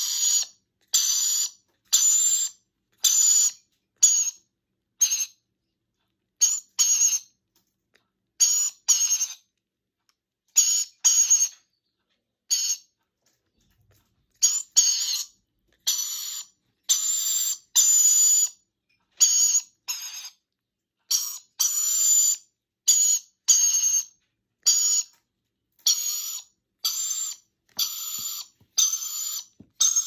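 Young hand-reared parrot begging during syringe feeding: short high calls repeated roughly once a second, with a brief pause about halfway through.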